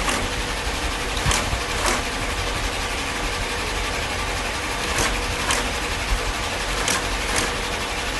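Industrial shoe-making machinery running steadily with a faint hum, broken by brief sharp clicks at irregular intervals, often two close together.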